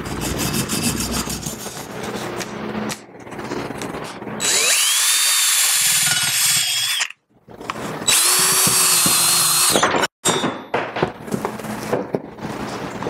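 A small hand wire brush scrubbing the iron body of a Sargent No. 400 hand plane. Then a DeWalt cordless drill runs twice against the plane to strip its paint and grime, each run two to three seconds long, its whine climbing and then holding steady. A few scattered knocks near the end.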